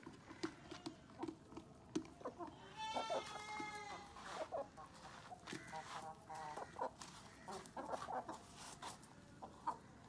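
Parrot-beak Aseel chickens clucking, with short clucks scattered throughout and one drawn-out, wavering call about three seconds in.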